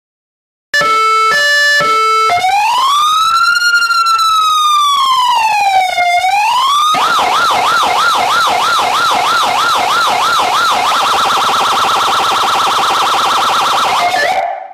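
Electronic emergency siren cycling through its tones: a few quick alternating high-low beeps, then a slow rising and falling wail, then a fast yelp of about three sweeps a second, then a still faster warble, cutting off suddenly near the end.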